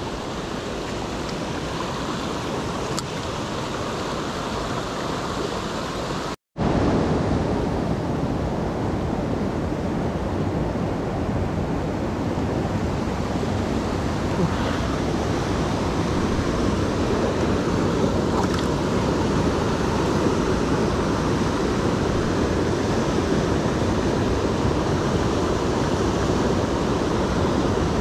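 Steady rush of flowing stream water, briefly cut to silence about six seconds in and coming back slightly louder.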